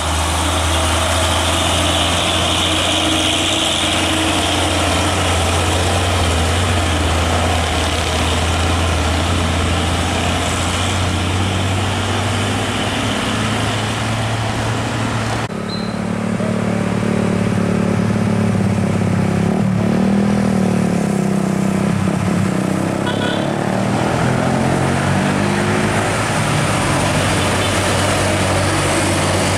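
Diesel engines of old Mitsubishi Fuso trucks. First a loaded truck drives past with a steady low engine hum. About halfway through there is an abrupt cut to a second Fuso, whose engine pitch rises and falls in steps as it pulls away through the gears.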